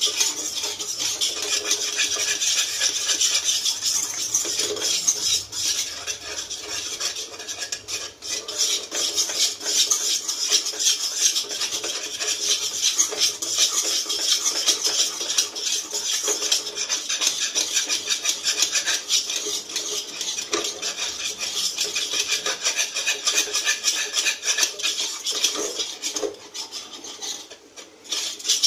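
A utensil stirring and scraping quickly and steadily around a non-stick kadai, working milk that has been cooked down to a thick, crumbly khoya just starting to turn golden for kalakand. The scraping pauses briefly near the end.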